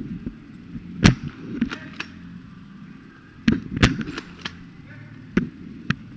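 Airsoft gunfire on the field: an irregular series of about nine sharp snaps and clicks, from guns firing and BBs hitting. The loudest come about a second in and in a cluster between three and a half and four and a half seconds in.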